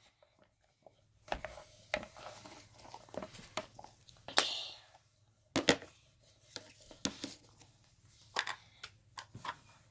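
Scattered soft clicks and knocks of small objects being handled at irregular intervals, with a brief rustle about four seconds in.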